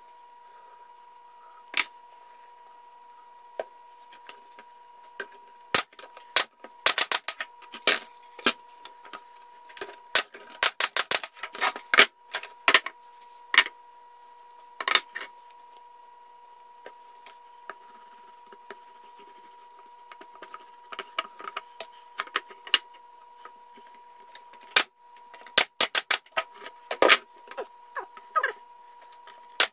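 Thin wooden strips clattering and knocking as they are picked from a stack and set onto a plywood beehive cover, in bursts of quick clicks several times. A steady faint high tone runs underneath.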